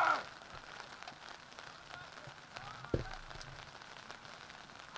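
Open-air ambience of a youth soccer game: a shout cut off right at the start, then faint distant shouting from the field, a light even crackle throughout, and a single short thud about three seconds in.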